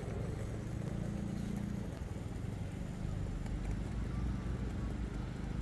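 Steady low rumble of city road traffic, cars and buses passing, with no single vehicle standing out.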